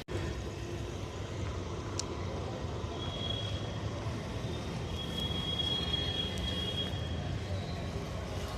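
Steady low rumble of road traffic, with a thin high whine for a few seconds in the middle and a single click about two seconds in.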